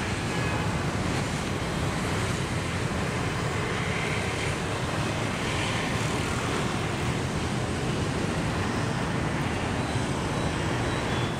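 Steady noise of city traffic, with wind on the microphone.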